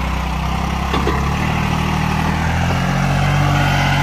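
New Holland tractor's diesel engine working under load as it hauls a fully loaded trolley of earth, a steady engine note that shifts pitch about a second in and climbs near the end.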